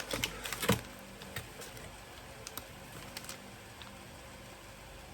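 Plastic bait packaging being handled: a quick cluster of sharp plastic clicks and crinkles in the first second, then a few scattered light ticks.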